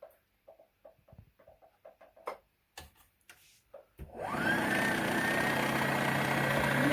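Light clicks and handling taps, then about four seconds in a Brother sewing machine's motor starts and runs steadily, its whine rising as it comes up to speed, driving the repaired bobbin winder.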